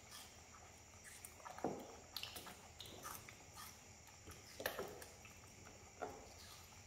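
Pet monkeys eating melon: faint, irregular wet smacks and chewing clicks.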